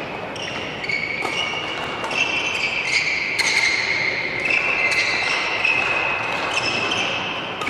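Badminton racket strings striking shuttlecocks in quick net taps and dribbles: sharp clicks every half second to a second, in a large hall. A high tone that steps up and down in pitch runs underneath.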